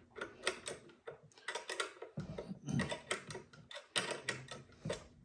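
Irregular small metallic clicks and taps, several a second, as a deep socket and a lever arm are handled and lined up on a Model A Ford's throttle and spark control rod.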